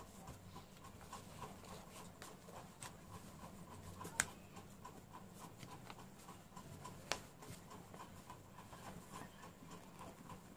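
Faint rustling and scraping of a paper sewing pattern being smoothed and pinned onto folded cotton fabric by hand, with two sharp clicks about four and seven seconds in, over a low steady hum.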